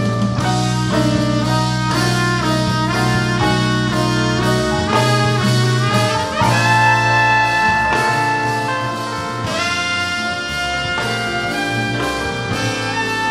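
Live jazz sextet: tenor saxophone and trumpet play a quick run of notes together over the bass and rhythm section, then hold long notes from about six and a half seconds in.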